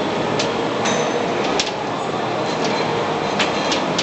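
Steady mechanical background noise with a faint hum and a handful of short, sharp clicks scattered through it.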